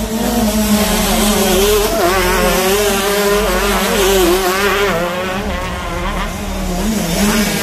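Several 125cc two-stroke motocross bike engines revving up and down as the bikes race along the track.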